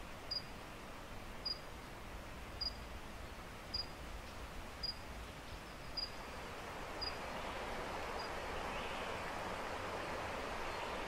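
Outdoor ambience: a steady rushing noise with a short, high chirp repeating about once a second, eight times, fading away about two-thirds of the way through. The rushing noise then grows louder.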